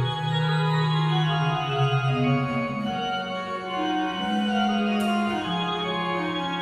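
Early 17th-century Liège pipe organ playing Baroque music in several voices, with a held bass note under a line that moves in steps.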